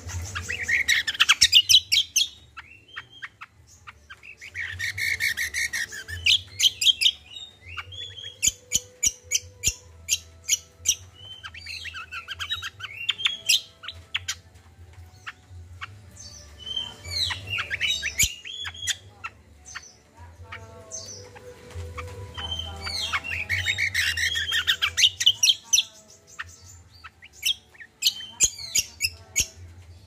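Caged kacial songbird singing a lively medley, a 'kombo' song: loud chattering phrases of a second or two, repeated every few seconds, with runs of quick ticking notes between them.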